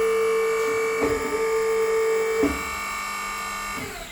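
Electric motor of a foot-pedal-operated workshop machine running with a steady hum, with three knocks about a second and a half apart. Near the end it is switched off and its hum falls in pitch as it winds down.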